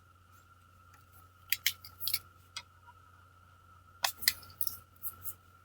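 Short, crisp scratching and snipping strokes of work on paper, in two quick clusters a couple of seconds apart, over a faint steady electrical hum.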